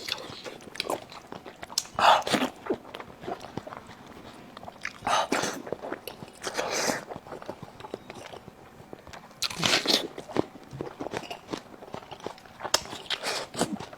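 A person biting and chewing food close to the microphone, with crunching and crackling bites and a few louder bursts.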